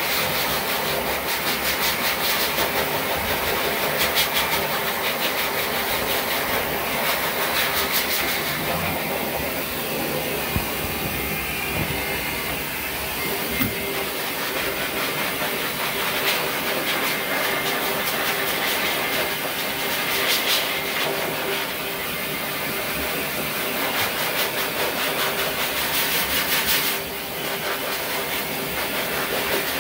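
High-velocity pet force dryer blowing air through its hose and nozzle onto a wet dog's coat: a loud, steady rushing hiss that dips a little near the end.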